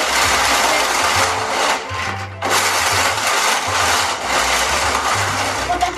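Hand-cranked gear mechanism of a plastic Tomica toy race track whirring and rattling as its dial is spun, with die-cast toy cars clattering around the figure-eight course. The noise breaks off briefly about two and a half seconds in.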